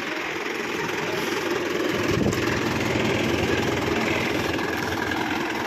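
Mahindra 585 DI XP Plus tractor's four-cylinder diesel engine idling steadily, getting a little louder about two seconds in.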